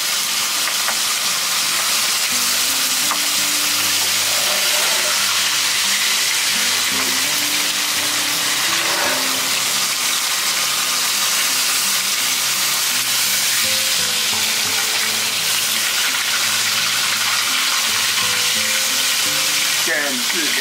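A whole stinky mandarin fish and pieces of pork belly sizzling steadily in hot oil in a wok, pan-frying until golden on both sides.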